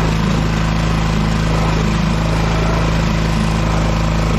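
Freshly rebuilt Suzuki 6 hp outboard motor running steadily at a constant cruising speed, pushing a kayak, with water splashing and rushing past beside it.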